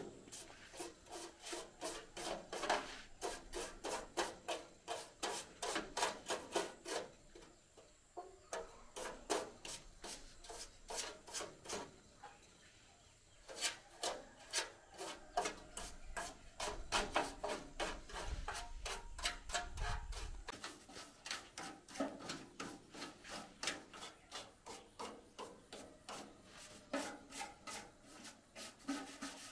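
Hand scrubbing or scraping strokes on the metal casing of a rice huller, several quick strokes a second in a steady rhythm, stopping for a few seconds midway and then resuming.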